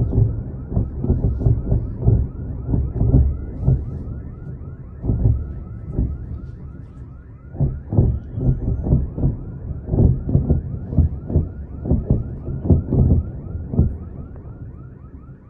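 Distant blasts: a rapid, irregular run of low booms and thuds, several a second, easing off about six seconds in and picking up again a couple of seconds later, with an alarm warbling faintly above them.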